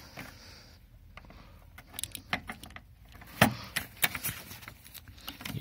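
Scattered metallic clicks and clinks of a hand tool on a screw, with one louder knock about three and a half seconds in, as a bit driver is worked at a fastener that won't break loose.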